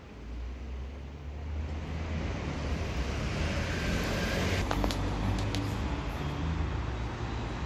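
Street traffic noise: cars passing with a steady low engine rumble, and a few brief clicks about four to five seconds in.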